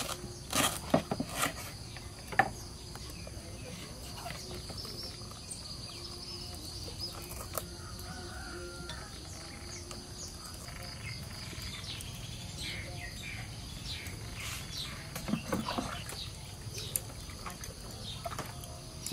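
Outdoor ambience of a steady insect chorus with birds calling faintly, broken by a few sharp knife chops into a banana-trunk sheath in the first couple of seconds and light knocks and handling sounds later.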